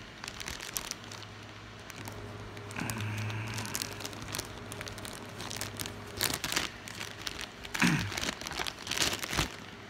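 Plastic wrapping of a trading-card pack crinkling as it is handled, a string of irregular crackles with louder clusters about six, eight and nine seconds in.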